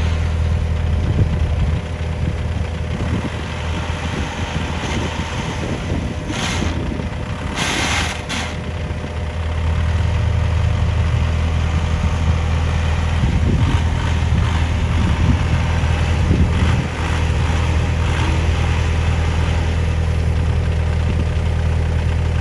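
Heavy construction-machine diesel engine running steadily, working harder from about ten seconds in until near seventeen seconds. Two short hisses of released air come about six and eight seconds in.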